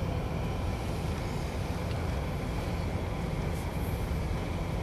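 Steady low rumble and hum inside the cabin of a Rolls-Royce Ghost standing at idle.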